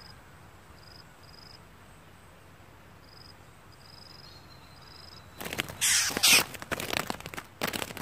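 Short, high insect chirps repeating every half second or so, then, about five seconds in, several loud, harsh bursts of noise lasting under a second each.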